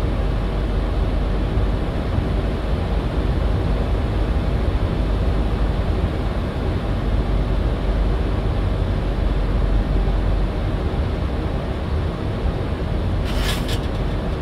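Steady flight-deck noise of a Boeing 737-800 in flight: an even rush of air and engine noise with a strong low rumble. A brief hiss comes near the end.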